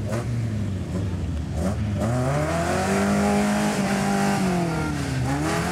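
Toyota 22R four-cylinder engine in a 4x4 truck revving hard, its pitch climbing to a peak about three seconds in, falling away, then rising again near the end.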